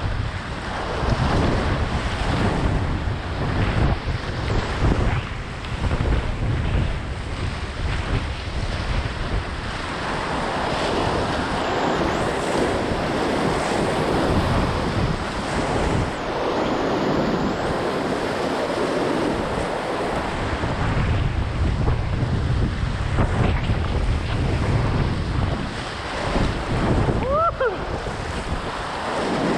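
Fast, high river water rushing steadily on the Patapsco River near flood stage (about 2,500 CFS), with wind buffeting the microphone in gusty low rumbles. A brief rising squeak sounds once near the end.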